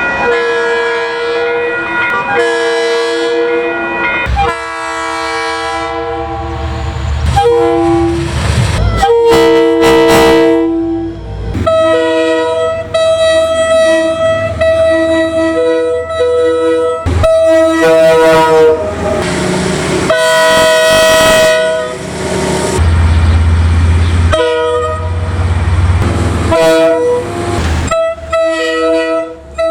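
A series of train horn blasts, each a chord of several steady tones, some held long and some short. The horn changes several times as one train follows another.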